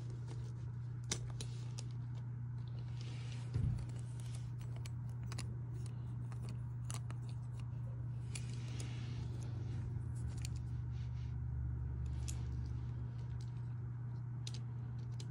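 Scattered small clicks and rubs of plastic Beyblade parts being handled, with one louder knock about three and a half seconds in, over a steady low hum.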